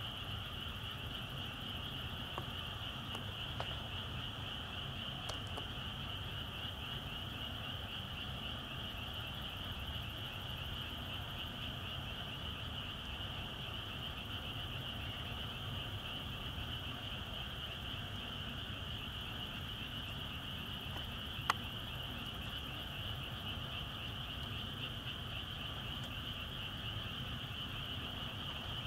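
Frogs calling in a dense, unbroken night chorus from the reservoir, with one sharp click about three-quarters of the way through.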